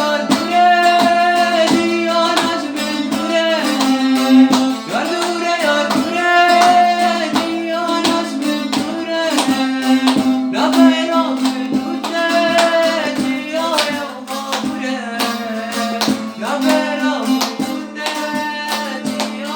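Kurdish song: a voice singing a melody over quickly plucked strings and a steady low held note.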